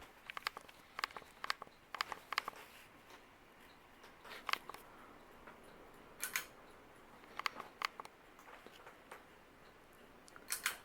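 A string of short, sharp clicks and light taps in irregular clusters, the loudest a bright snap about six seconds in and a double click near the end.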